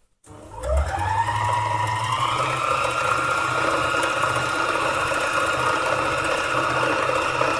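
Needle-felting machine starting up: its motor whine rises in pitch over the first couple of seconds, then holds steady while the needles punch through the wool petal.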